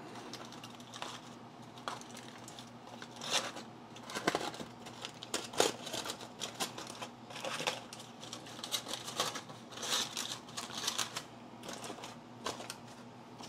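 Aluminum foil crinkling and crackling as hands peel open a foil packet, in irregular rustles that come and go.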